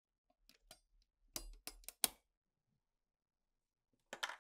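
A screwdriver tip working at a small coil tension spring on a tape recorder's steel mechanism: light clicks and scrapes, a sharp click about two seconds in, then a short clatter near the end.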